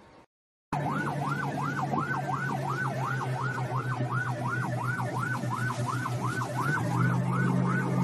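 A siren wailing fast, its pitch sweeping up and down about three times a second, starting abruptly just under a second in, over the steady drone of a speedboat's twin outboard motors, which grow louder about seven seconds in.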